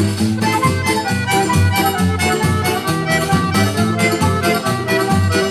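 Instrumental festa junina (forró) music, with an accordion carrying the melody over a steady beat.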